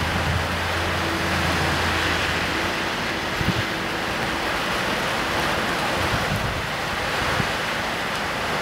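Heavy rain falling in a steady, dense hiss, with wind gusting and buffeting the microphone now and then. A low steady hum sits under it for the first few seconds.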